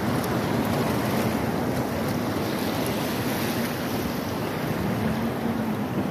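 Steady rush of surf in shallow water, with wind buffeting the microphone.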